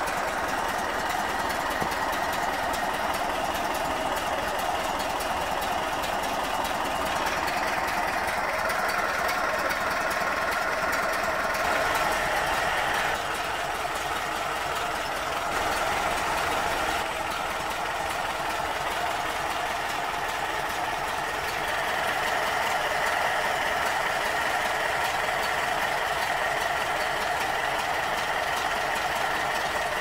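1978 Volkswagen Brasília's air-cooled flat-four engine with twin carburettors running at idle, steady throughout with a few small shifts in its note.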